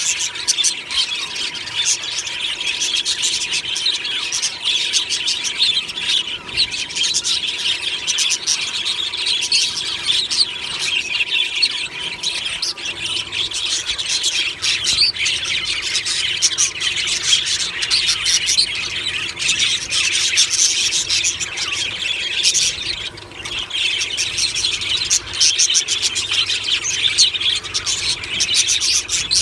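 A flock of budgerigars chattering, chirping and squawking together in a continuous dense chorus, with a short lull about 23 seconds in.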